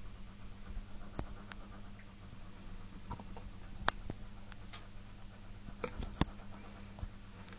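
Zanussi FL1012 front-loading washing machine running mid-wash: a steady low motor hum with scattered, irregular clicks and knocks.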